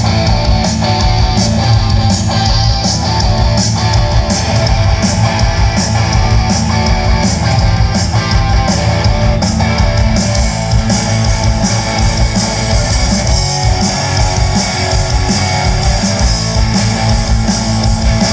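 Live rock band playing: electric guitars, bass and a drum kit, with a steady beat of cymbal strikes that grows fuller about halfway through.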